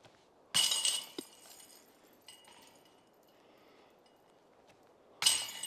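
Disc golf basket chains struck by a thrown disc twice, about half a second in and again near the end: each a sudden metallic clash that jingles and rings for about a second before dying away, with a few faint chain clinks between.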